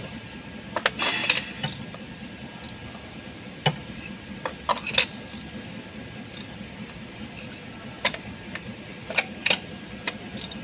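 Metal hand tool clicking and clinking in short, irregular bursts as a new spark plug is tightened into a Mitsubishi Eclipse Cross engine.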